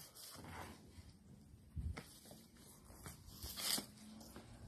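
Faint rustling and handling noise from a handheld camera, with a soft knock about two seconds in and a brief brushing sound near four seconds.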